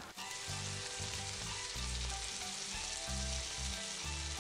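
Minced pork and diced onion sizzling steadily in a hot oiled wok on high heat, stirred with a spatula that breaks up the meat.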